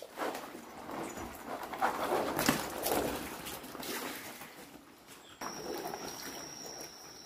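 Water splashing irregularly as a dog steps and wades across a sagging pool cover with water pooled on it. Partway through it turns quieter, with a faint steady high whine.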